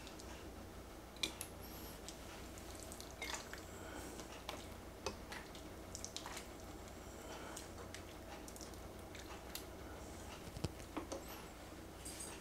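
Faint wet squelching and dripping of thick chili as a ladle scoops and stirs it in a slow cooker crock, with a few light scattered clicks.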